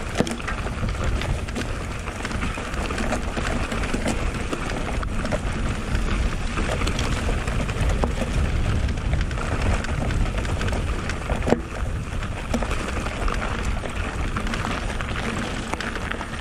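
Mountain bike descending a rough track: tyres rolling and rattling over loose stones, with wind rumbling on the microphone and scattered sharp knocks, the loudest about eleven and a half seconds in.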